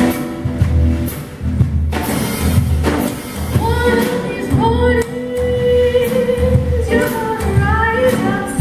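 Acoustic string band playing: upright double bass plucking a steady beat under a strummed acoustic guitar. A woman's voice comes in singing about three and a half seconds in and holds one long note midway.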